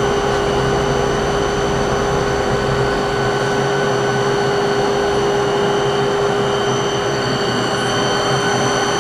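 SMTW H163 plain cylindrical grinder running: a steady machine hum from its motors and cooling fan, with a constant whine over it.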